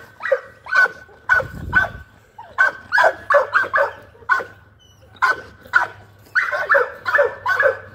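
Pit bull-type dogs barking in quick runs of short barks, two to three a second, with a brief lull near the middle and a denser burst toward the end.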